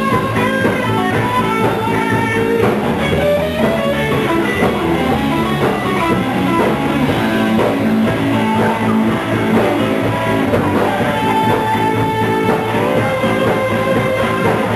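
Live blues band playing an instrumental passage: an electric lead guitar solos with bent notes over electric bass and drum kit. About two-thirds of the way in, one high note is held for over a second.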